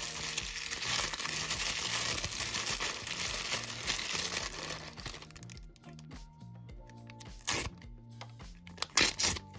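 Plastic blind-box packaging crinkling and tearing as a toy is unwrapped, for about five seconds, then a few sharp clicks and taps near the end. Background music plays throughout.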